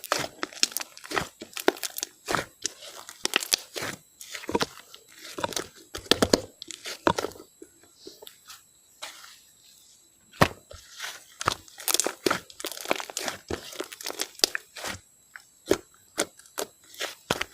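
Slime being squeezed and poked by hand, giving a run of irregular sharp crackles and pops, with a quieter stretch about nine seconds in.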